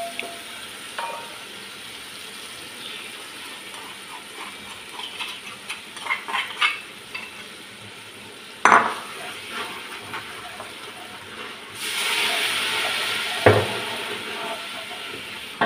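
Tomato-onion masala sizzling in oil in an aluminium pot while a wooden spoon stirs it, with light clicks and scrapes of the spoon against the pot. There is a sharp knock about nine seconds in, and the sizzling grows louder at about twelve seconds, with another knock soon after.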